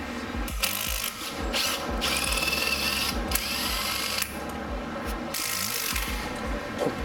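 Cordless power tool run in several short bursts, spinning a 17 mm deep socket to back a nut off the engine mount stud.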